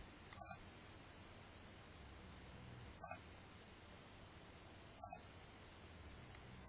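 Three computer mouse clicks, a couple of seconds apart, each a quick double tick of the button being pressed and released, made while placing points of a sketch line in CAD software.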